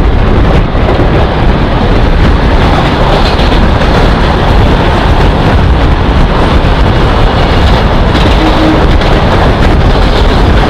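Steady, loud rushing and rumbling of an EMU train running at speed alongside a freight train, heard from the EMU's open doorway, with heavy wind buffeting the microphone.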